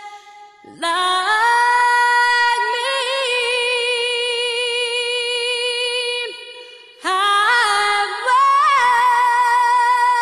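Music: an unaccompanied female voice singing long held notes with vibrato, in two phrases with a short pause between them.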